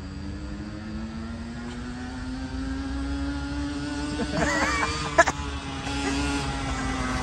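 Mini motorcycle's small engine running at a steady pitch as it rides up, growing louder as it approaches, with a sharp click about five seconds in.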